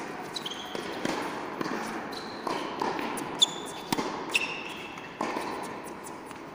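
Tennis rally on an indoor hard court: sharp racket strikes and ball bounces at irregular intervals, with brief high squeaks of tennis shoes on the court surface.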